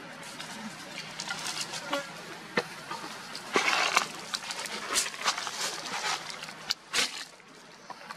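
Dry leaf litter rustling and crackling under a baby macaque scampering across it: scattered sharp crackles, with a denser burst of rustling about halfway through.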